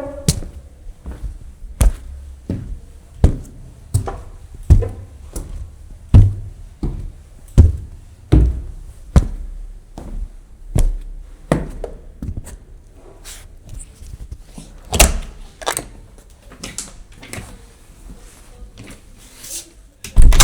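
Footsteps on a staircase, thudding at a steady pace of about one and a half steps a second, then lighter and more irregular after about twelve seconds, with a heavier step around fifteen seconds and a loud thump at the very end.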